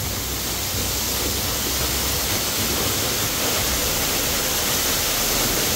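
Monsoon waterfall pouring down with great force: a loud, steady rush of falling water.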